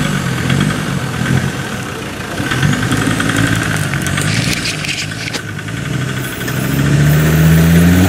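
Land Rover Discovery Td5's five-cylinder turbodiesel working under load as the truck crawls up out of a muddy creek bed, revs rising and falling. There is a stretch of scraping clatter in the middle, and the revs climb steadily near the end.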